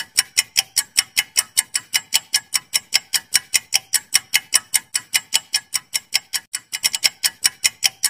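Clock-ticking sound effect for a quiz countdown timer: quick, even ticks, several a second.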